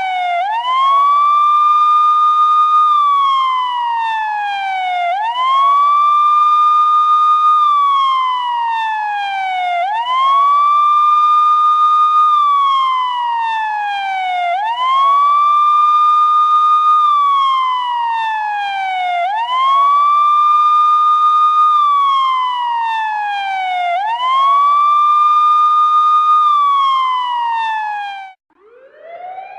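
Electronic police siren sounding its wail: each cycle rises quickly to a high tone, holds briefly, then falls in a long slow glide, repeating about every four and a half seconds, six times over. Near the end it cuts off and a different siren tone starts rising.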